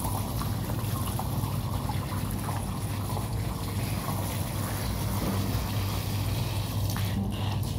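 Water running steadily from a garden hose onto a soaked, rolled-up carpet, with a steady low hum underneath.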